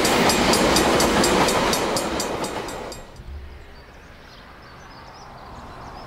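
A steam-hauled excursion train, NZR Ab class locomotive 608 Passchendaele and its carriages, passing close by at speed with a rapid regular beat. It stops abruptly and fades away to a faint background about three seconds in.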